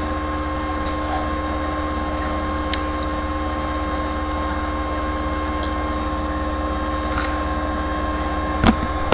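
Steady electrical hum with an even hiss underneath, made of several fixed tones. There is a faint click about three seconds in and a sharper click near the end.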